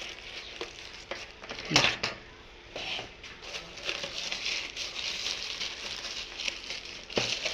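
Plastic packaging crinkling and rustling as items are handled, with a sharp knock just under two seconds in and a smaller one near the end.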